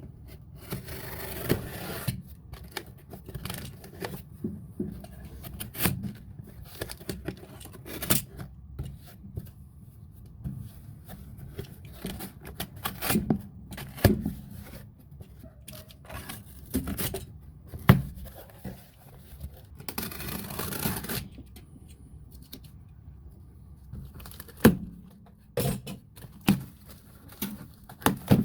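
Packaging and small parts being handled during an unboxing: rustling, scraping and tearing, with scattered sharp clicks and knocks as pieces are set down.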